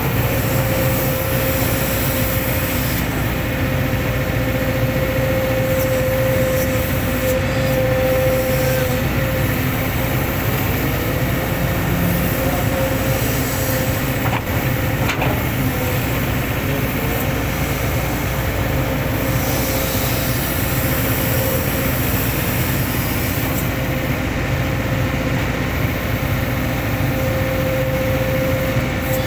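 Hitachi hydraulic excavator at work: the diesel engine runs steadily under a constant hydraulic whine, with an odd sharp knock, one about fifteen seconds in.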